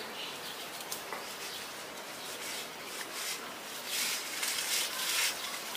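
Leaves and branches rustling as people push through brush on foot, growing louder about four seconds in.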